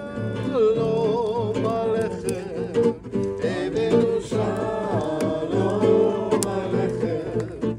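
A worship song sung to guitar accompaniment, the voice holding wavering notes with vibrato.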